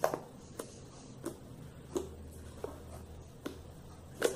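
Fluffy slime made of glue and boric acid water being pressed and folded by hand, giving short squishy pops and crackles about every two-thirds of a second, the loudest near the end.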